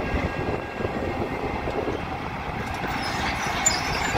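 Liebherr R924B crawler excavator travelling on its steel tracks: the track chains clank and rattle steadily over the running diesel engine. High squeals from the tracks and rollers join in about three seconds in.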